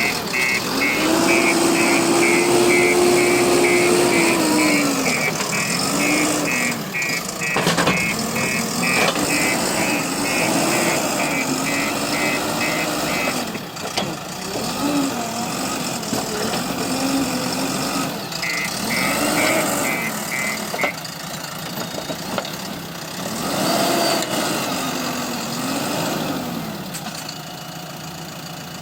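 JCB backhoe loader's diesel engine running and repeatedly revving up and dropping back as it works under load. A rapid electronic beeping, about two beeps a second, runs for the first half and briefly again later. There are a few sharp clunks.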